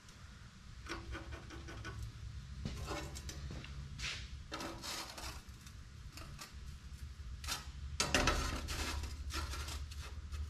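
Scratchy strokes of a pen drawn along a metal straightedge bar across a steel plate, with the bar sliding and scraping on the plate between strokes; the loudest scrape comes about eight seconds in. A steady low hum runs underneath.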